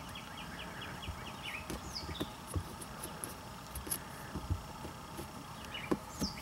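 Faint high chirping, about six short chirps a second, for the first second and a half, with a single falling note shortly after. Scattered soft clicks and taps follow, from a hand working the rain light sensor's plastic parts at the windshield.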